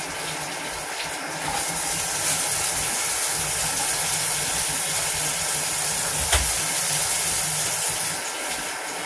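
Kitchen tap running steadily, a rushing water hiss with a low hum beneath it.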